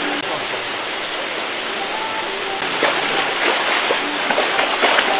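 Hooked giant grouper thrashing at the water's surface, splashing, with the splashing getting louder and choppier about halfway through.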